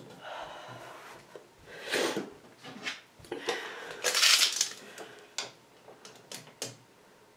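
A loose wooden shelf board being slid onto and set down on black metal L brackets: a series of scrapes and knocks of wood on metal, the loudest about four seconds in, followed by a few sharp clicks.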